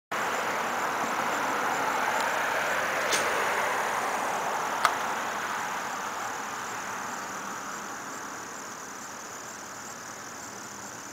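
Road traffic passing by, a vehicle's noise swelling then slowly fading away, with a steady insect buzz high above it. Two sharp clicks come in the first half, the second the loudest.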